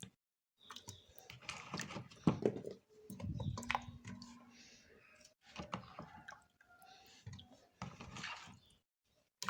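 Soft clicks, knocks and wet shuffling as pieces of potato are laid into the pot of meat and sauce, in uneven bursts with short pauses.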